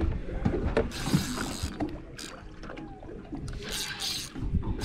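Water splashing against a small boat's hull in short hissy bursts, with scattered mechanical clicks from a spinning reel being wound against a hooked fish.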